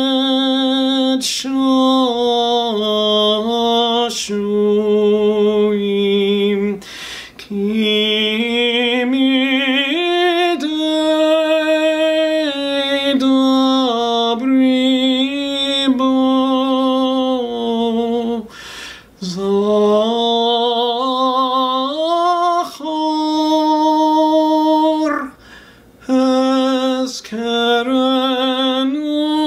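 A male cantor chanting a Hebrew prayer solo, holding long notes with vibrato and moving step by step up and down in pitch, with a few short pauses for breath.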